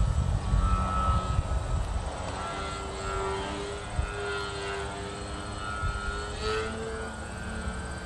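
Engine of a small fixed-wing aircraft droning in flight overhead. Its pitch wavers and glides up briefly near the end as the plane moves.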